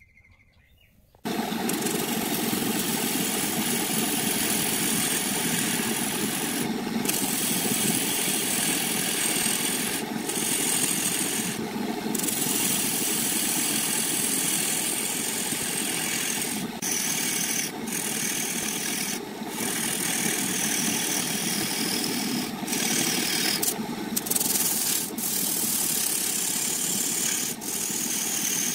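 Wood lathe running with a tool worked against the spinning wood, a steady rasping scrape that starts suddenly about a second in and lifts off for a moment every few seconds.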